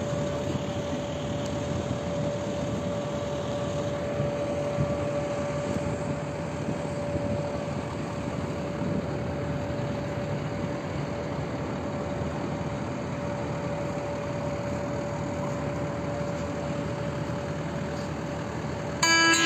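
An engine running steadily, a continuous even noise with one constant mid-pitched whine held throughout.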